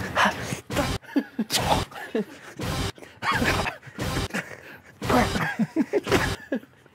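Repeated short, sharp breaths and gasps from a person, about eight of them at an uneven pace, with a few brief wordless voice sounds in between.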